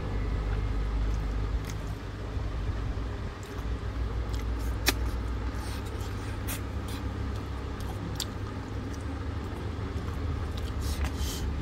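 Steady low background rumble, with a few faint scattered clicks and taps.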